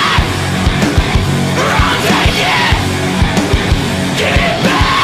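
Heavy, aggressive rock music with a fast, steady drum beat and shouted vocals.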